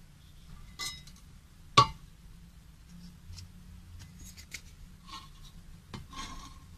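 A metal fire extinguisher being handled: one sharp knock about two seconds in, a lighter one before it, then small clinks and rubbing of metal near the end.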